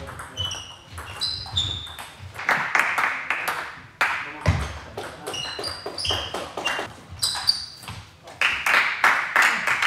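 Table tennis rallies: the celluloid ball clicks rapidly against the bats and the table, and many hits leave a short high ping. There is a burst of closely spaced hits near the end.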